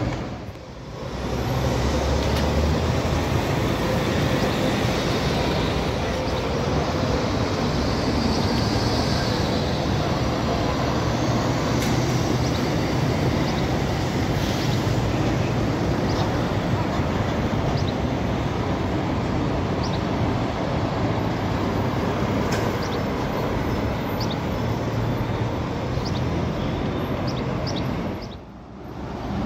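City street traffic at an intersection: buses and cars running and passing, a steady wash of engine rumble and tyre noise. It dips briefly about half a second in and again near the end.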